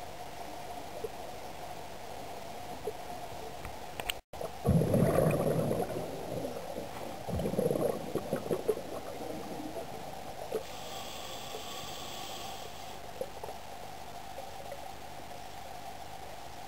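Scuba diver's exhaled bubbles from the regulator, gurgling and rumbling underwater in two bursts, about five and seven seconds in, over a steady low hum.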